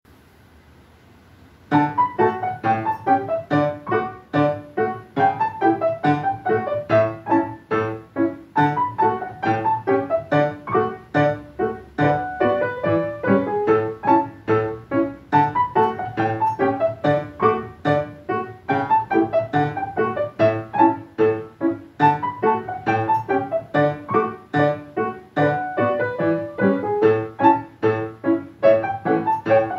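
Piano four hands: two players on one grand piano playing a gavotte, a lively stream of short, detached notes over a bass line, beginning about two seconds in.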